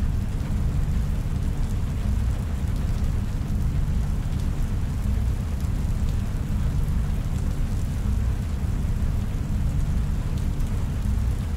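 Steady deep rumbling drone of a science-fiction room ambience, with an even hiss above it and a few faint ticks.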